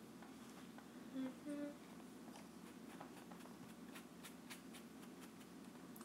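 A person hums two short rising notes about a second in, over quiet room tone with a steady low hum. Faint light taps follow through the rest.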